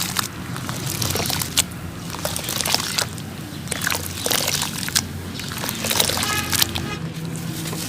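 Sand-cement chunks being crumbled in water: many short, sharp crunches and crackles over wet sloshing, with a steady low hum underneath.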